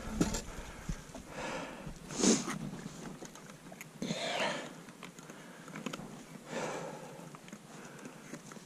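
A man breathing hard, with a breath roughly every couple of seconds and the loudest about two seconds in.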